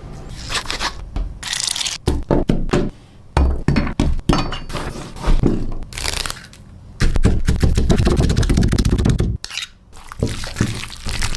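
Food-preparation sounds: a run of knocks, thunks and scrapes, with a steady noisy stretch of about two seconds starting around seven seconds in.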